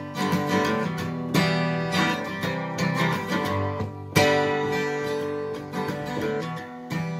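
Acoustic guitar strumming chords, with plucked upright double bass notes underneath: the instrumental intro of a folk-rock song, before the vocals come in. The strums hit hardest about a second in and again about four seconds in.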